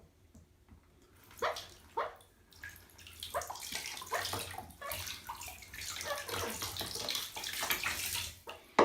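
Water splashing and sloshing in a bathtub as a parrot is bathed. Two short sharp sounds come about one and a half and two seconds in, then the splashing runs on almost without a break.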